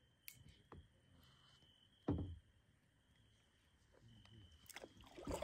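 Quiet night lake ambience: a faint insect trill comes and goes, with a single dull knock about two seconds in. Kayak paddle splashes and drips come near the end.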